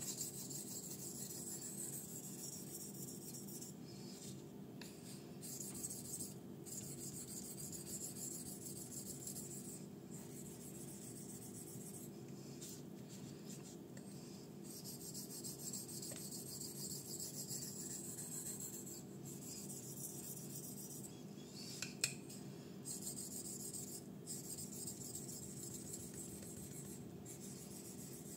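A 154CM-steel folding knife blade stroked back and forth on a Belgian natural whetstone of roughly 6000–8000 grit, a steady soft rasp of steel on stone with short breaks between sets of strokes: the fine finishing stage of the sharpening. A single sharp tick about three-quarters of the way in.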